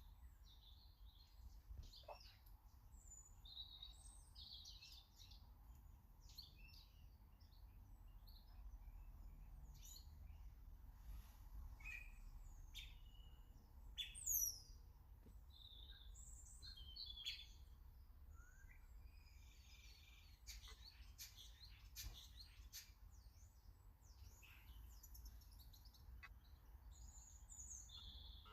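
Faint garden birdsong: many short, high chirps and calls scattered throughout, with one louder downward-sliding whistle about halfway through, over a steady low rumble.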